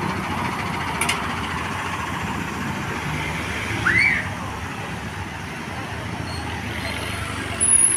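Bus engines running steadily, with a short rising-and-falling whistle about four seconds in and a brief high squeal near the end.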